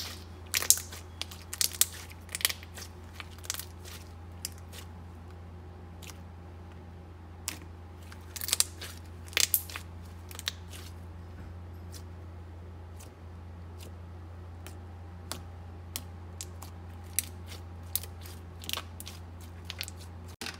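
Thick slime being squished, folded and pressed by hand, making irregular sticky clicks and small pops, busiest at the start and around the middle, over a steady low hum.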